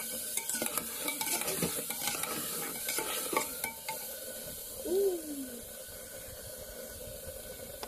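Metal spoon stirring chicken and potatoes in tomato sauce in an aluminium pot, scraping and clinking against the pot over a steady sizzle of frying. The clinking stops about halfway through, with a short voice sound about five seconds in, and the sizzle goes on.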